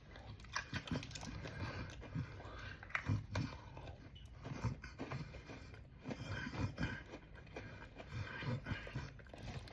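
Chocolate-and-cinnamon Oreo cookies being chewed close to the microphone: soft, irregular crunches and mouth sounds.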